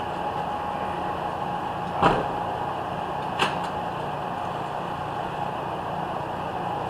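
Two sharp knocks about a second and a half apart, the first louder, over a steady background hum.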